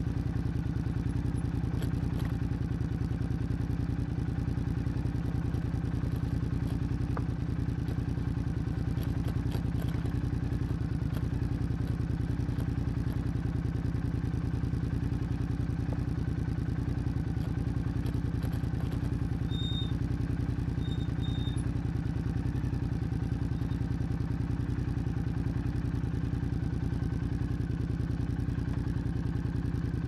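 Royal Enfield Interceptor 650's parallel-twin engine through an Officine Zard full exhaust, running steadily at an even pitch with no revving while the bike is ridden.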